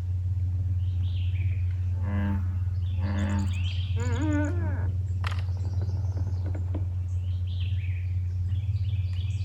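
Birds calling over a steady low hum: high chirps about a second in and again near the end, and a few louder, wavering calls in the middle.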